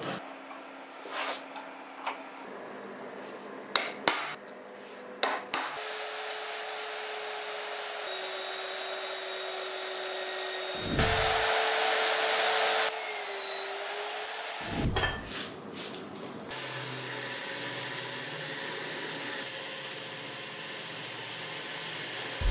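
A power tool running steadily, with a louder stretch of about two seconds a little past the middle. A few sharp knocks come before it starts.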